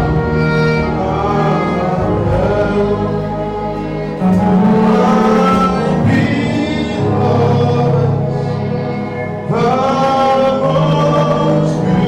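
Gospel music: voices singing over instrumental backing, with a low bass line that changes note every second or two.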